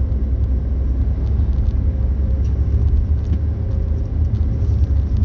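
Steady low rumble of a car driving, its road and engine noise heard from inside the cabin.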